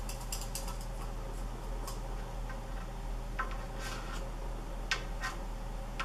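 Scattered light clicks and ticks in small clusters, from an unpowered ceiling fan being turned slowly by hand with green-cheeked conures perched on its blades, over a steady low hum.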